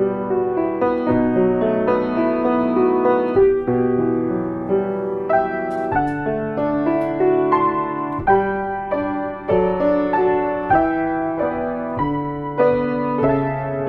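Solo piano playing an instrumental piece, with a steady flow of struck notes and chords.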